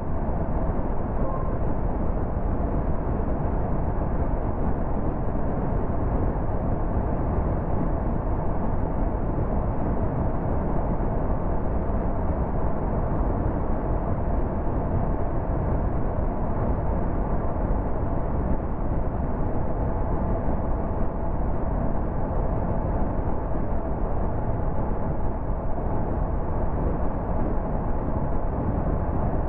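Steady tyre and wind noise of a car cruising at motorway speed, with a faint steady hum.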